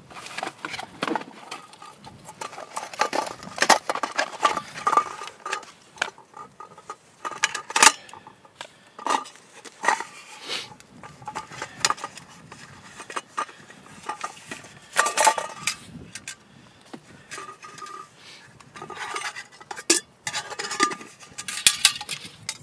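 Metal camping cookware being unpacked and handled: repeated clinks, knocks and short rings as pot, lid and parts touch, with rustling of a stuff sack.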